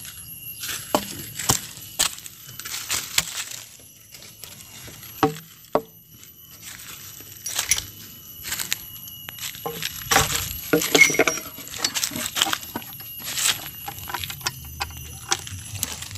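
Irregular light clinks, clicks and knocks, scattered unevenly, as gear is handled while wet rubber slabs are made ready for weighing.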